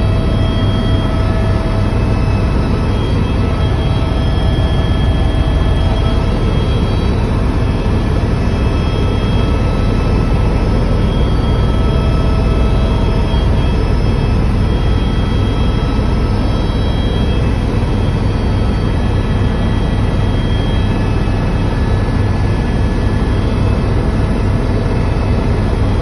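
Airbus EC130 turbine helicopter in level flight, heard inside the cabin: a steady, loud, deep rotor-and-engine rumble with thin, steady high turbine whine tones over it.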